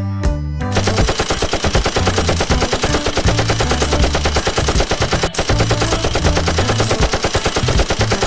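Rapid machine-gun fire sound, a dense unbroken stream of shots starting just under a second in, with one brief gap near the middle, over background music with a stepped bass line.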